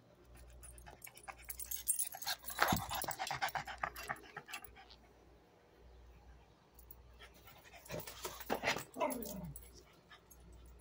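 Small dog barking in two bouts of rapid, close-set barks about five seconds apart, the second ending on a sharply falling note.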